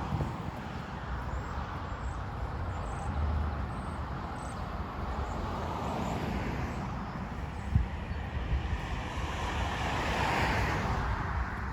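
Road traffic passing by, with a steady low rumble underneath; two vehicles swell up and fade away, the second near the end, and a single sharp knock sounds partway through.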